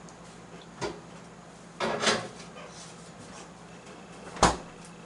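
Kitchen clatter from cleaning up: a few separate knocks and clinks of kitchen items being handled and put away, the sharpest and loudest near the end.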